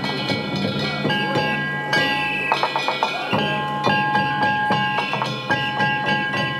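Japanese festival percussion from a procession boat: drum beats and sharp wooden clacks over ringing, bell-like metal tones.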